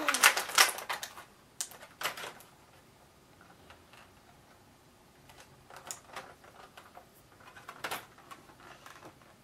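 Clear plastic packaging crinkling and crackling as it is handled, in short bursts, the loudest at the start.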